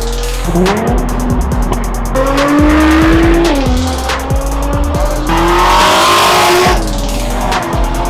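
Car engines revving, their pitch climbing and dropping, with tyre squeal and a loud rush of engine and tyre noise about five to seven seconds in, over background music with a steady beat.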